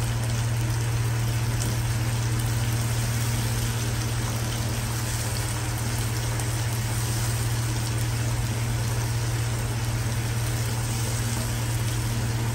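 Onions and chopped tomatoes sizzling steadily in hot oil in a non-stick kadai as they are stirred, over a steady low hum.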